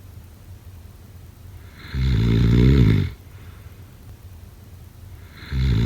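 A person snoring: two loud rasping snores about three and a half seconds apart, one about two seconds in and one starting near the end, with quieter breathing between them.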